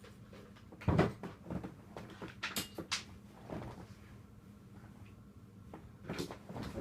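A thump about a second in, then a few sharp clicks and knocks, from someone moving about a small room and handling things.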